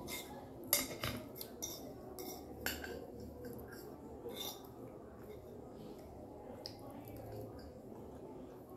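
Forks clinking and scraping on dinner plates while eating: several sharp clicks in the first few seconds, the loudest about three-quarters of a second in, then quieter scraping.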